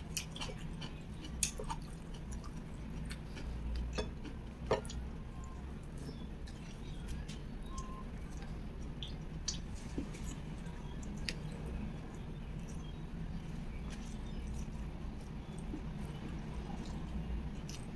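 Close-miked eating sounds: soft, wet mouth clicks and chewing as sticky rice with fried coconut serundeng and beef is eaten by hand, the clicks scattered and thicker in the first few seconds. A steady low hum lies under it.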